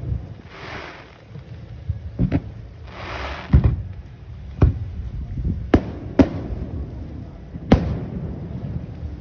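Aerial fireworks shells bursting, about seven sharp booms at uneven intervals, with a hissing rush between some of the bursts.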